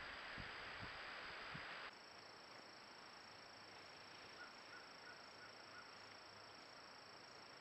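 Near silence: faint outdoor field ambience from a trail camera's microphone, a steady hiss with a thin high steady tone. A few soft low thumps come in the first two seconds, the hiss drops abruptly to a quieter level about two seconds in, and a short run of about six faint chirps comes near the middle.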